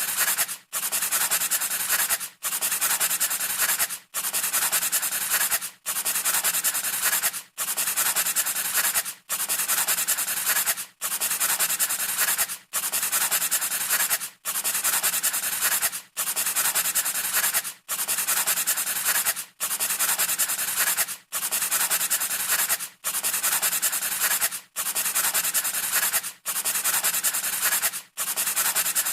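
Dry scraping, rubbing sound repeating in even strokes of under two seconds each, with a brief break between strokes, like a looped sound effect.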